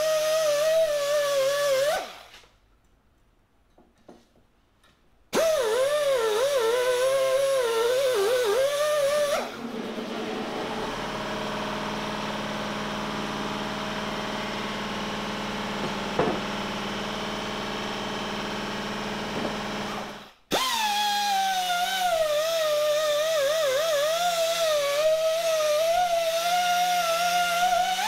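Pneumatic die grinder whining in the bore of a cast bronze capstan, its pitch wavering as it loads against the metal. It stops twice, and in the middle a steadier, lower machine hum takes its place.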